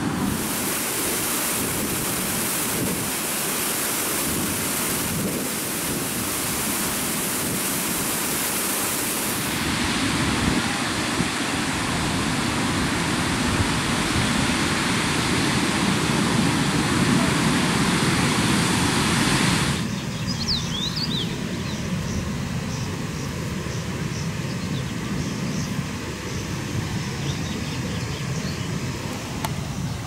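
Water rushing over a low concrete weir in a dense, even wash of noise. It cuts off sharply about two-thirds of the way through, leaving a quieter open-air background with a few bird chirps.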